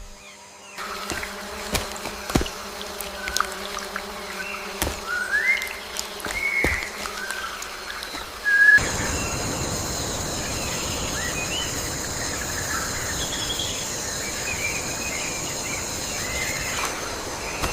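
Forest ambience: a series of short whistled bird calls with scattered sharp clicks. About halfway it switches abruptly to a steady, high insect buzz with occasional bird chirps.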